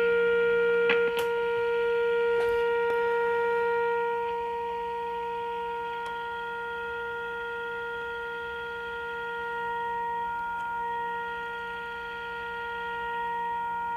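A steady mid-pitched tone with overtones comes from the 1939 Fada Model 169 radio's speaker while a shortwave alignment trimmer is peaked with a screwdriver. The tone drops in level about four seconds in and wavers slightly near ten seconds, with a few small clicks in the first three seconds.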